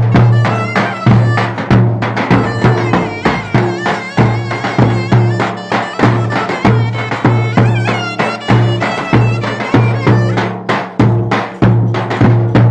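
Turkish folk dance music: a steady, even drum beat under an ornamented melody.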